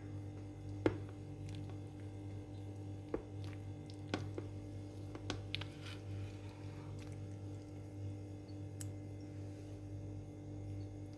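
A metal spoon scooping a soft creamy mango float out of its container, giving a few light, sharp clicks of spoon against the container, over a steady low hum.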